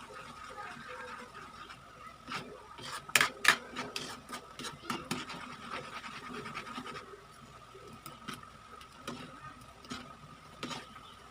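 A cooking utensil scraping and clicking against a pan as the sauce is stirred, with two sharper knocks about three seconds in. A faint steady high hum runs underneath.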